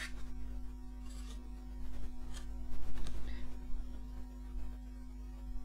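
Steady electrical mains hum, with a few light clicks and taps from small items being handled on a desk, the loudest about three seconds in.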